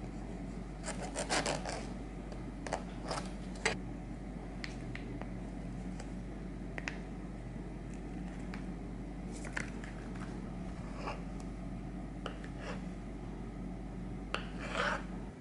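Kitchen knife cutting the plastic casing of a tube of tofu and slicing the tofu on a wooden cutting board: scattered short scrapes and knocks, the loudest cluster about a second in and another near the end, over a steady low hum.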